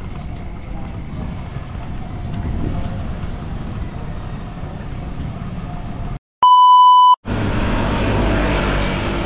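Wind rumble on the microphone and road noise from a moving bicycle. About six seconds in, the sound drops out and a loud, steady electronic beep lasts under a second. Then the rumble comes back louder, with a low steady hum.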